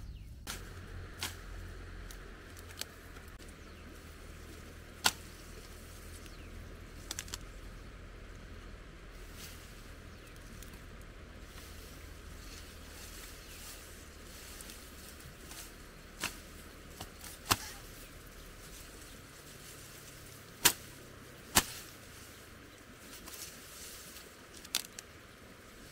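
Tall grass stalks being snapped or cut by hand, a sharp crack every few seconds over a low steady outdoor hiss.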